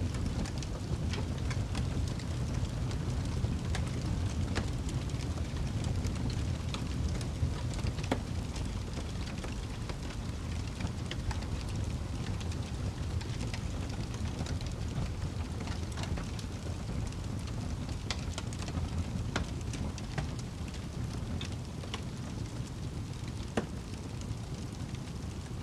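Wood fire crackling in a fireplace: irregular small pops and snaps over a steady low rumble.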